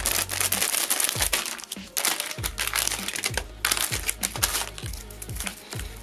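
Plastic packaging crinkling: anti-static bags being cut open with scissors and bubble-wrapped circuit boards unwrapped. Background music with a steady bass beat runs underneath.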